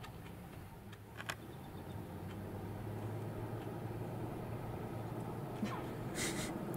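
Idling vehicle engine, a steady low hum that grows louder, with a few faint clicks about a second in and a short high chirp near the end.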